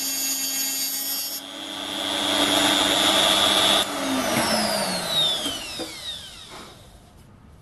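A Hilda die grinder running as a tool post grinder on a metal lathe, its abrasive disc grinding across a spinning stainless steel workpiece: a high whine with a grinding hiss. About four seconds in the grinder and lathe spin down, the whine falling in pitch and fading away.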